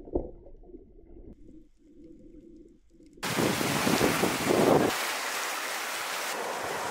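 Wind and sea noise. It is muffled and low for the first three seconds after a thump, then cuts back in at full strength with heavy gusts buffeting the microphone, and settles to a steady rush.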